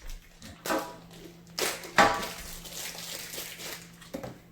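Handling noise from unpacking a power-tool kit: a knock, then a sharper clack about two seconds in, followed by about a second and a half of rustling and crinkling that fades away.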